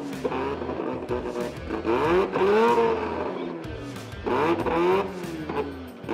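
Mazda RX-7 drag car's rotary engine revved repeatedly at the start line, its pitch rising and falling with each blip of the throttle, about every two seconds.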